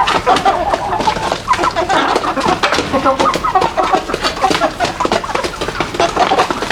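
A flock of chickens clucking: many short, overlapping calls with no pause, amid many small clicks.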